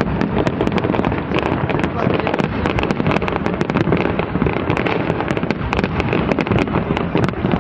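Fireworks display going off continuously, a dense, unbroken run of rapid bangs and crackles, heard through a phone's microphone.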